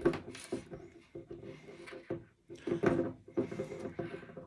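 Handling noise of a soldering helping-hand clamp as a wired XT90 connector is fitted into it: several irregular clicks, knocks and rubbing.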